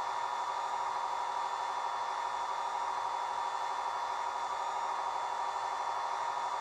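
Sound-equipped Rapido HO-scale Amtrak F40PH model locomotive playing its recorded diesel engine idle through its small onboard speaker, a steady, even drone with its strongest pitch in the middle range.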